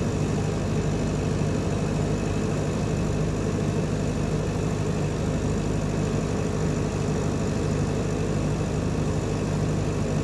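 Ship's engine machinery running with a steady, unchanging low drone.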